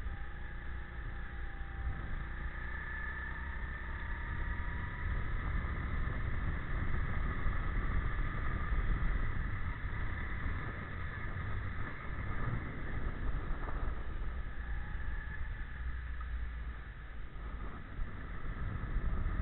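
Go-kart engine running through a lap, its whine rising and falling in pitch as the kart speeds up and slows for the corners, over a heavy low rumble of wind on the onboard microphone.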